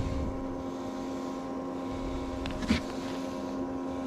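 Steady motor hum aboard a bass boat, made of several even tones at a constant pitch. A single sharp knock comes a little under three seconds in.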